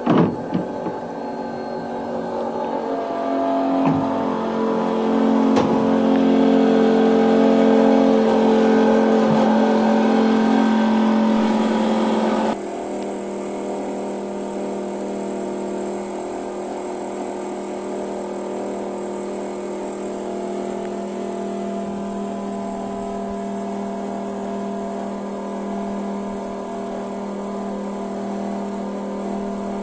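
Excavator diesel engine running at a steady pitch, louder for the first dozen seconds, then dropping suddenly to a lower steady level. A thin high whine joins about eleven seconds in and carries on.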